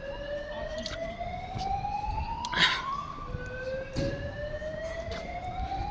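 Fire alarm sounding a slow whoop: one tone climbing steadily in pitch. About three seconds in it drops back low and starts climbing again.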